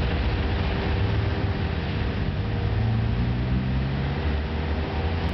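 Heavy diesel road-paving machinery running steadily, its low engine note shifting in pitch around the middle, over a steady hiss.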